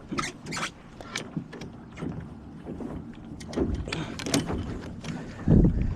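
Small sailboat under way: a series of short knocks and clatters over a steady wash of water and wind, with a loud low thud near the end.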